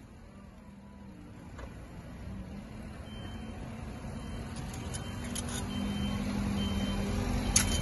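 A road vehicle's engine running, growing steadily louder, with a low steady hum. A few sharp clicks come in the second half.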